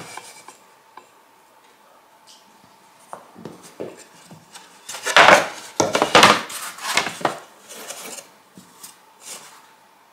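Spruce guitar-top boards being handled and set against each other: wood knocking and scraping, with a burst of louder clatter about halfway through and a few light knocks near the end.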